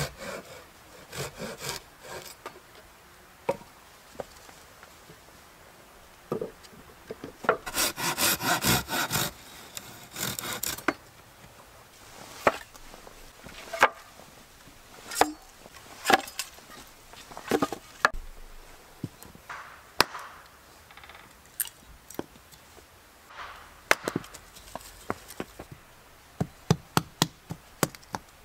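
Hand saw cutting through wooden boards in bursts of quick back-and-forth strokes, then single sharp wooden knocks every second or two as wood is split, ending with a quick run of hatchet strikes splitting kindling.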